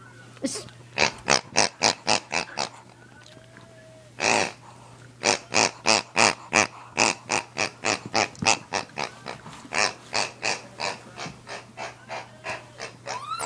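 A rubber pig squeeze toy squeezed over and over in quick runs, about three or four short bursts a second. There is one longer squeeze about four seconds in.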